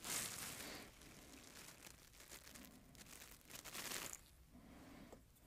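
Paper shop towel rustling and crinkling under hands handling small carburetor parts on the bench, in two brief bursts: one at the start and one about three seconds in.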